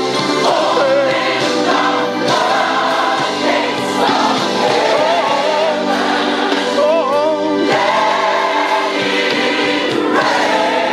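Gospel choir singing with a steady band accompaniment.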